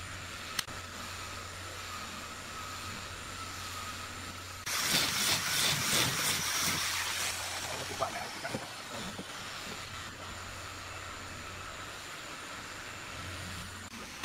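Compressed air hissing out of a workshop's pneumatic nailer air line: a sudden loud hiss about five seconds in that fades over a few seconds, over a steady low hum, followed by a few light knocks of wood being handled.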